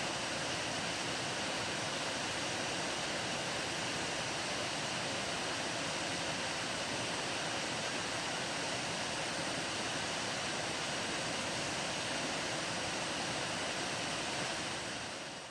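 Water pouring over a concrete weir spillway into the pool below: a steady rushing that fades out near the end.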